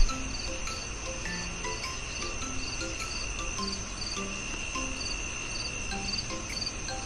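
Crickets chirping: a steady high trill with rhythmic chirps two to three times a second over a hiss of background noise. A brief thump sounds at the very start.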